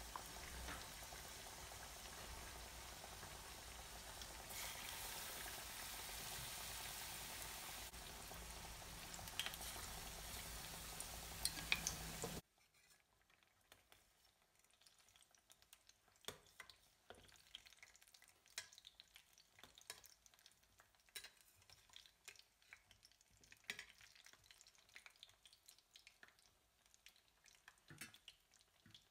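Batter-coated green chillies (mirchi bajji) deep-frying in hot oil in a steel kadai: a steady sizzle with a couple of sharp clicks. About twelve seconds in the loud sizzle cuts off abruptly, leaving fainter scattered crackles and pops of frying oil.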